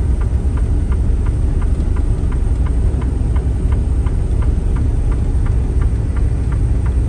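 Semi truck cab interior while driving slowly: a steady low engine and road rumble, with a light ticking repeating about two and a half times a second.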